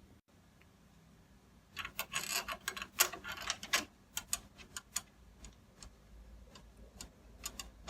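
Screwdriver driving a doorknob's mounting screw through the rose into the latch: a run of small metal clicks and scrapes, densest about two to four seconds in, then scattered single clicks.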